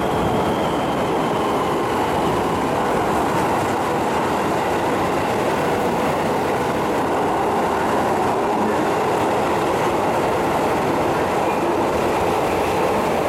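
Electric commuter train running through an underground subway station: a steady rumble of wheels on rail with a faint traction-motor whine, echoing in the station.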